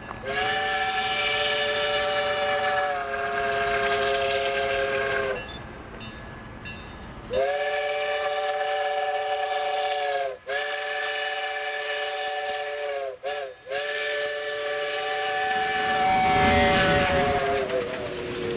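Steam whistle of an Iowa Interstate QJ 2-10-2 steam locomotive, sounding a chord of several notes at once in a series of long blasts with two quick short blasts in between. Near the end the locomotive's rumble comes up and the whistle drops in pitch as it passes.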